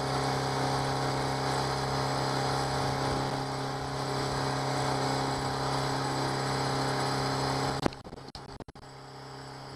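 Honda 8 hp four-stroke outboard kicker motor running at a steady cruising speed, a constant hum with water rush. About eight seconds in the sound drops abruptly and briefly cuts out, then continues much quieter.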